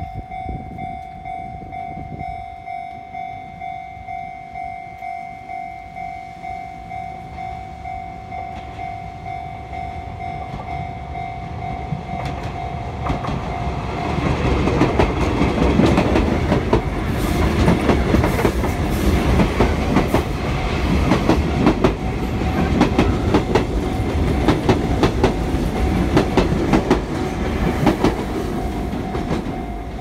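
Japanese level-crossing warning bell ringing in a steady pulsing clang. About halfway through, a Sotetsu electric commuter train passes close by, louder, its wheels clattering over rail joints and drowning out the bell, which is heard again near the end.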